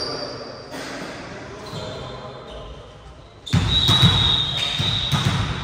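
Volleyball bouncing on a gym floor amid footsteps and voices, in a large echoing sports hall; the sound gets suddenly louder about three and a half seconds in.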